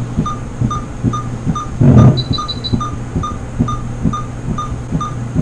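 Patient monitor beeping in time with the heartbeat, about two and a half short beeps a second, over a steady low hum and a soft throb on each beat. About two seconds in, a louder whoosh swells, with a quick run of higher beeps.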